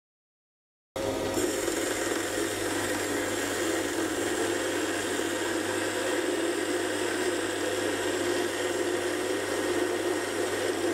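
Sieg C3 mini lathe running and taking a turning cut in a steel bar with a hand-ground high-speed steel tool that has a chip-breaker step; a steady machining sound with a low hum that starts about a second in.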